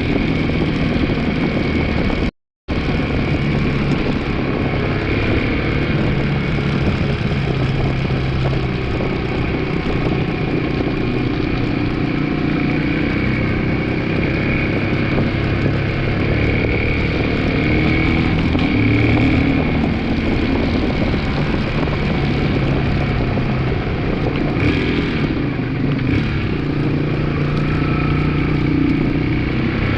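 2002 Yamaha 225's single-cylinder motorcycle engine running steadily at idle, checked for a clunk from the clutch area. The sound cuts out completely for a moment about two and a half seconds in.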